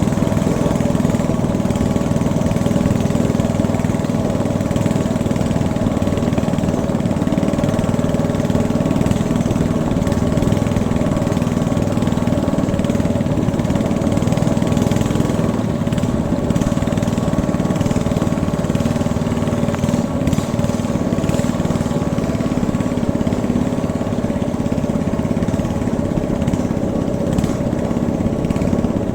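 Small single-cylinder engine of a katinting (motorized longtail canoe) running steadily at constant speed.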